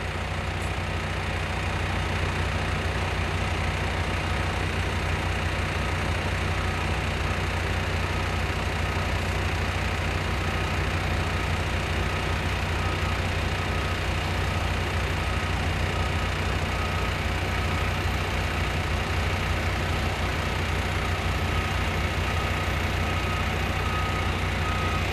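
A heavy engine running steadily at a constant speed, with a deep even rumble and no change in pitch.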